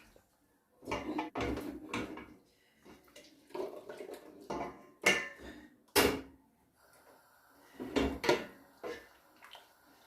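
A spoon stirring and scraping around a cooking pot in irregular strokes with occasional knocks against the pot, working loose garlic, ginger and spices stuck to the bottom.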